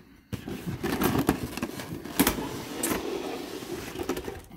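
Clear plastic blister tray scraping and rattling against the cardboard as it is slid out of a figure box, with two sharp clicks a little over two seconds in.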